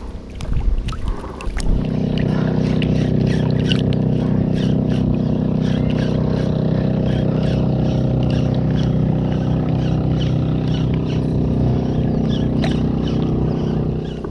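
Boat engine running at a steady pitch. It starts abruptly about two seconds in and holds level, with scattered light ticks over it.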